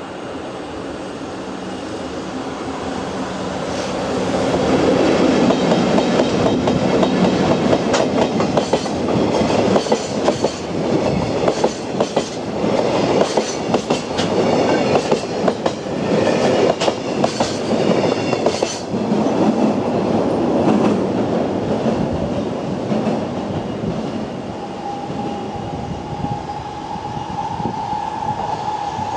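Double-headed JR EF64 1000-series electric locomotives hauling a container freight train past at close range: the rumble builds as the locomotives go by, then a long, rhythmic clickety-clack of wagon wheels over the rail joints, fading away as the train moves off.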